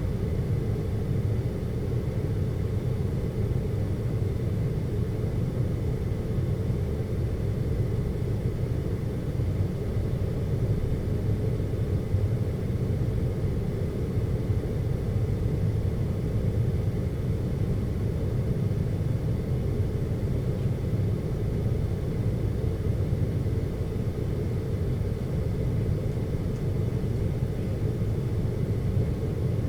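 Steady low ambient hum: a deep, rumbling brown-noise-like drone that does not change.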